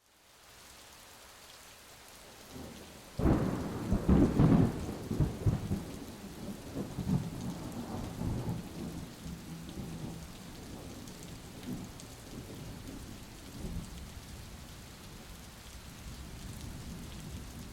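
Steady hiss of rain, with a low roll of thunder that starts suddenly about three seconds in and slowly dies away.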